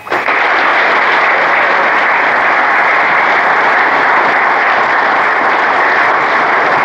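Large seated audience applauding steadily, many hands clapping together, starting right after a speech ends.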